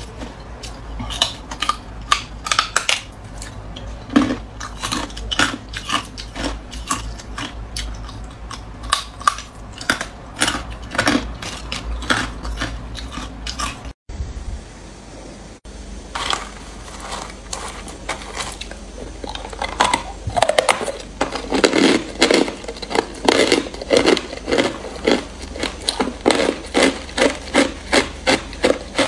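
Hard ice being bitten and crunched between the teeth: irregular sharp cracks at first, then after a short break a steady run of chewing crunches about two a second.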